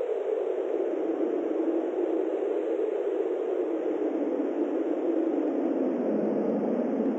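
A steady rushing noise, like wind or static, with no distinct pitch. Its pitch slowly sinks across several seconds and begins to rise again near the end.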